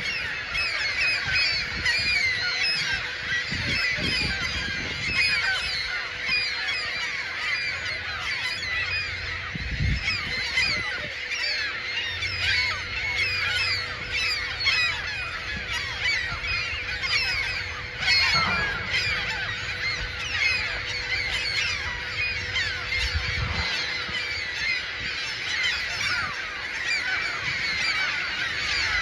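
A large colony of gulls calling all at once: a dense, unbroken chorus of overlapping screeching calls from birds guarding their nests and hatchlings.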